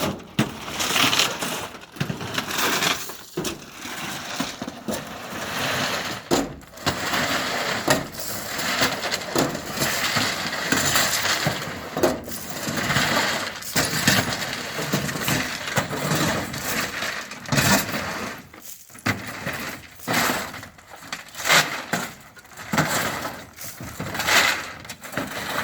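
Gravel being unloaded from a pickup bed by hand: irregular, repeated crunching and scraping of gravel being dug into and tossed out.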